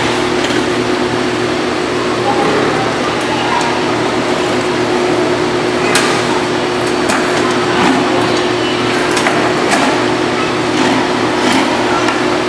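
Honey-extracting machinery running with a steady hum, as honeycomb frames feed through a hot-knife uncapping machine that cuts the wax cappings off. A few sharp clicks sound over the hum in the second half.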